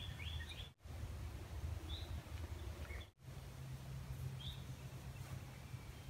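Quiet woodland ambience: a few faint, short bird chirps over a low steady rumble, with two brief dropouts to silence.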